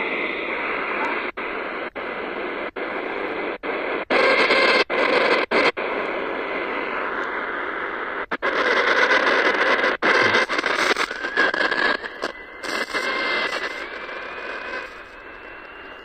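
Medium-wave radio static and hiss from a portable receiver's speaker as it is tuned up the band, cut by brief silences as the audio mutes between frequency steps. Near the end a thin heterodyne whistle rises in pitch, and the volume is turned down.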